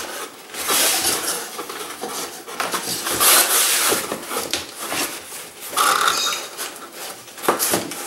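Corrugated cardboard scraping and rubbing as a cardboard liner is pushed down into a comic box shell, with a few sharp knocks near the end.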